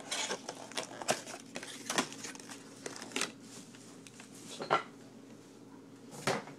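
A 2012 Topps Baseball hobby box being opened by hand: short, irregular crinkling and rustling of the cardboard lid and the foil-wrapped card packs inside.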